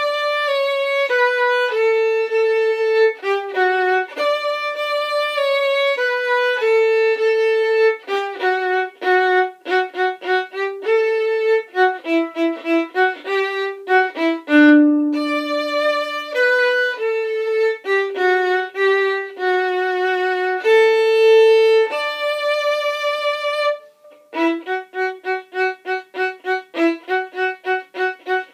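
Solo violin playing a bowed holiday melody in sustained, connected notes. After a brief break about 24 seconds in, it switches to quick, short, separated notes.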